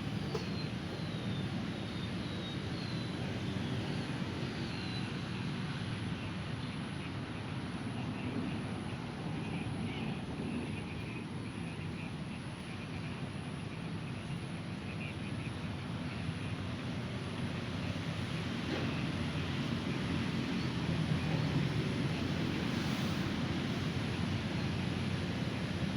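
Steady low rumble of distant engine noise, with a few faint descending bird chirps in the first few seconds.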